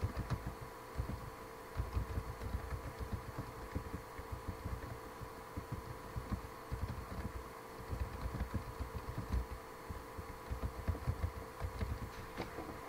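Computer keyboard typing picked up as muffled, irregular low thumps, several a second, over a faint steady electrical whine.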